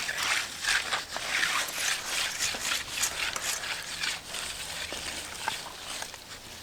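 Repeated scraping swishes, two or three a second, of a finishing tool being worked over wet concrete.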